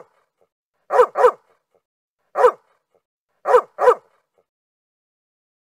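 Dog barking in short separate barks: a quick pair about a second in, a single bark a second later, then another quick pair.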